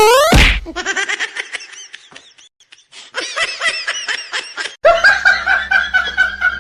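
A quick rising glide right at the start, then people laughing in three rounds of rapid ha-ha pulses, the last round over a steady low hum.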